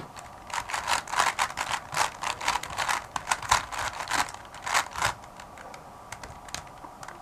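A 3x3 speedcube turned fast by hand through its last-four-edges step: a rapid run of plastic clicks and clacks from the layers. The dense turning stops about five seconds in, followed by a few scattered clicks.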